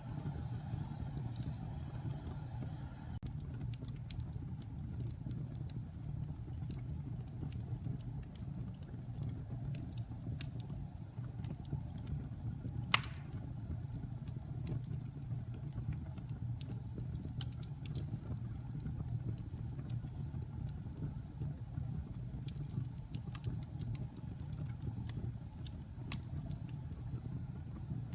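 Wood fire burning in a fireplace: a steady low rumble of flames with scattered crackles and small pops, and one sharp, loud pop about halfway through.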